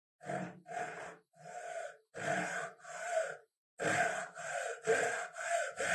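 Hacksaw cutting through an old, weathered wooden axe handle held in a vise: rasping back-and-forth strokes about two a second. It pauses briefly a little past halfway, then the strokes resume quicker.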